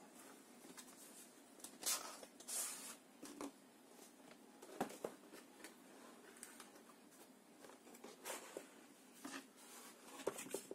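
Cardboard kit box being handled and opened by hand: faint scattered taps and rustles, with a louder brushing scrape between two and three seconds in.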